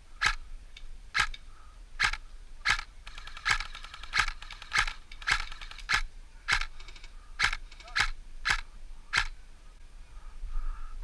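Airsoft rifle firing single shots: about fourteen sharp cracks in a steady rhythm, roughly one every two-thirds of a second, stopping about nine seconds in.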